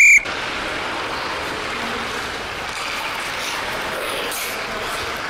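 Steady hiss of ice skate blades gliding and scraping on the rink surface as a skater moves.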